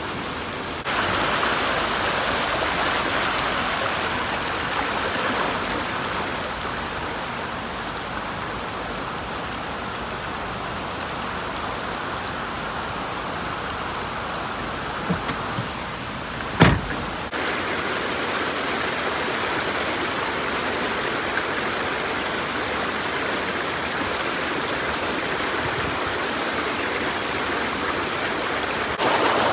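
Heavy rain falling on flood water and fast-flowing muddy floodwater rushing, a steady hiss. One sharp knock about halfway through.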